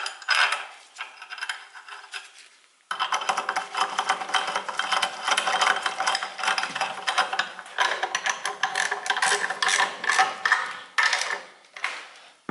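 Socket ratchet wrench clicking rapidly as bolts are tightened on a makeshift starter-housing mount. There is a short run of clicks at the start, a pause, then long runs of fast clicking from about three seconds in, with brief breaks.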